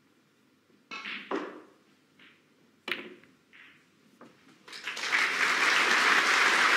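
Snooker cue striking the cue ball and balls clicking against each other, a few sharp knocks in the first three seconds. About five seconds in, audience applause breaks out and holds for a well-made pot.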